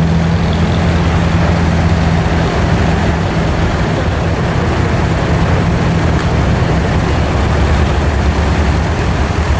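Diesel engine of an abra, a traditional wooden Dubai Creek water taxi, running steadily as a low, even drone.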